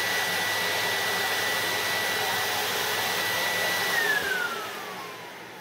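Canister vacuum cleaner running with a steady high whine over its rushing air. About four seconds in, the whine falls in pitch and the sound fades as the motor winds down after being switched off.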